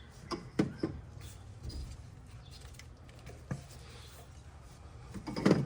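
Light knocks and clunks of the Toyota Camry's plastic ignition coils being lifted out of the engine and handled: a few taps near the start, one about halfway, and a louder cluster of clunks near the end.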